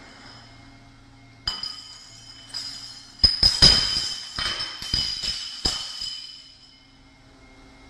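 Stacked glass bottles clinking and smashing: a first crash about a second and a half in, then a rapid flurry of crashes and bright ringing glass in the middle, dying away near the end.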